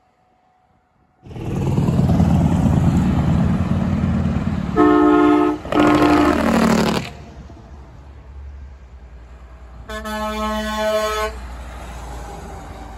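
Semi trucks passing under load, their diesel engine noise starting suddenly about a second in. Two air-horn blasts from a Freightliner Coronado come around five and six seconds in, the second falling in pitch. A third air-horn blast, from a Coronado's dual Hadley air horns, comes about ten seconds in.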